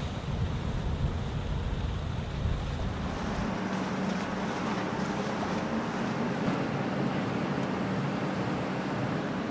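Tugboat engine running over rushing water wash, with wind on the microphone. About three and a half seconds in, the deep rumble drops away, leaving a steady engine hum and the rush of water.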